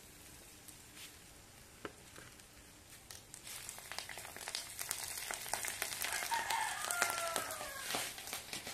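Small fish frying in hot oil in a wok, a dense crackling and spattering that starts about three seconds in and grows louder. A rooster crows in the background near the end.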